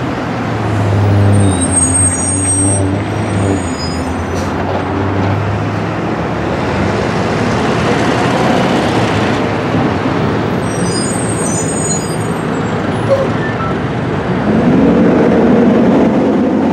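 Diesel-electric locomotive running and rolling slowly, with two spells of high squealing, the first about a second in and the second around eleven seconds in. Near the end the engine revs up, its pitch rising.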